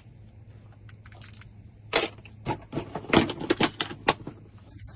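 Car keys jangling and clicking as they are handled, with a quick run of sharp metallic clicks in the second half.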